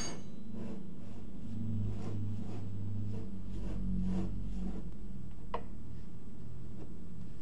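Steady low mechanical hum with light, irregular clicks and taps, and one sharper click about five and a half seconds in.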